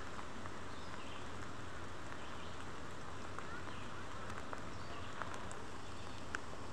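Steady, even outdoor background hiss with a few faint, short bird chirps scattered through it.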